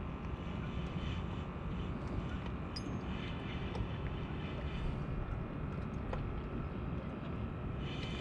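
Steady low rumble of a boat motor running, with wind on the microphone.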